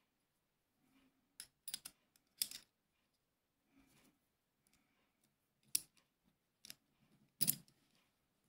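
Sharp metallic clicks and clinks of the small steel parts of a miquelet flintlock lock being handled and fitted together by hand: a quick cluster of clicks about two seconds in, then single clicks spread through the second half, the loudest near the end.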